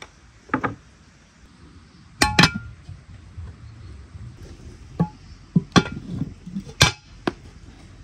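A series of clinks and knocks of cookware, dishes and utensils handled during cooking. There is one knock about half a second in, two close strikes a couple of seconds in, and several more in the second half, some ringing briefly.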